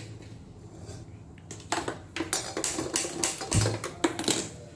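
Metal kadhai being set down and shifted on a gas stove's grate: a quick run of clicks and knocks that starts a little under two seconds in, with one heavier thump near the end.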